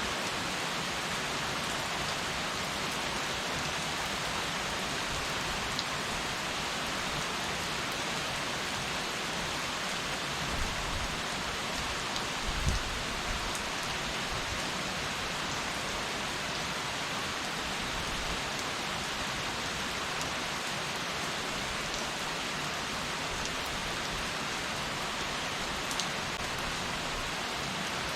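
Heavy rain falling steadily, an even hiss of drops on surfaces, with a brief low rumble a little before the middle.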